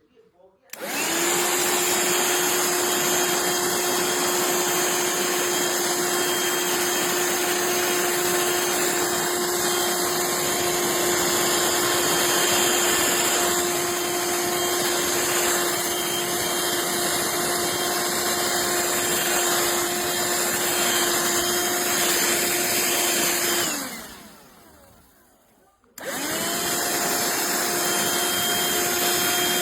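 Black+Decker Dustbuster cordless handheld vacuum switched on about a second in, its motor running with a steady whine. Near the end it is switched off and winds down, then is switched on again about two seconds later, spinning back up.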